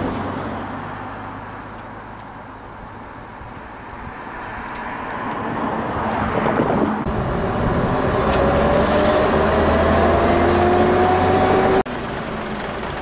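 BR Class 33 diesel-electric locomotive's Sulzer engine powering up as it starts its train, getting steadily louder, with a rising whine climbing over the engine sound in the last few seconds. Near the end the sound cuts abruptly to a quieter, steady engine sound.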